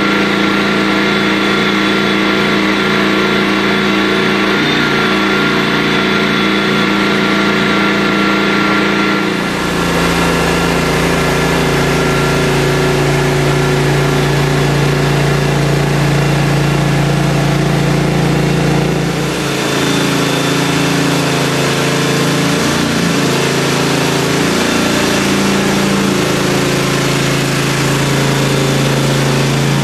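Mini loader's engine running steadily while driving a concrete grinder attachment. The sound shifts abruptly twice, about ten and twenty seconds in, with a brief wavering in pitch in the last third.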